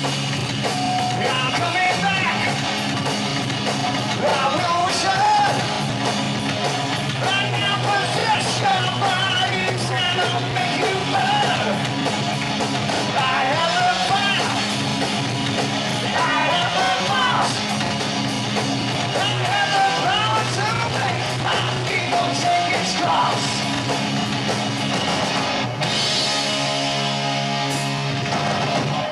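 Heavy metal band playing live: distorted electric guitar and drum kit under a shouted, sung vocal. About four seconds before the end the vocal stops and the band plays on.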